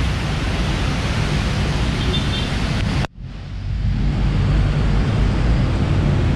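Rainy street ambience: a steady noise of traffic and rain on a wet road. It drops out abruptly about three seconds in, then comes back.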